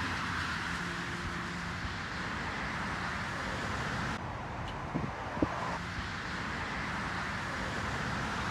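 Steady rushing noise of road traffic streaming past, the car sound said to resemble waves on a beach, with a couple of brief knocks about five seconds in.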